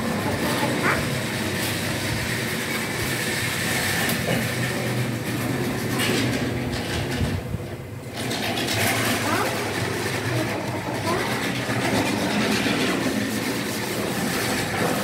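Miniature DC model steam tram running on the layout's track: a steady motor hum and wheel-on-rail rumble, dipping briefly about eight seconds in.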